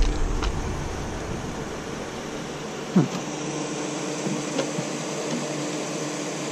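Steady mechanical hum with a held tone, like a fan or air-conditioning unit running. About three seconds in there is a single short knock as a perforated plastic panel is tipped against a plastic wheelie bin.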